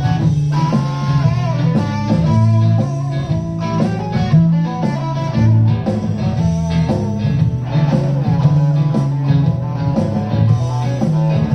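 Solid-body electric guitar played through an amplifier, improvising a busy run of quick picked notes over repeated low notes.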